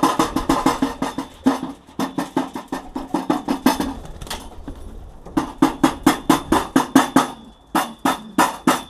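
Racing pigeons pecking grain from a metal feeding trough: fast runs of hard taps, several a second, with a short pause about four seconds in.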